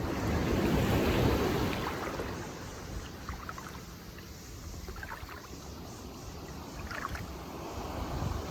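Shallow seawater sloshing and small waves washing in, louder for the first couple of seconds and then settling lower, with a few faint small splashes.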